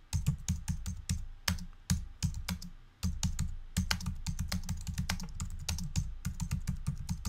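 Typing on a computer keyboard: a fast, irregular run of keystrokes with a brief pause about three seconds in.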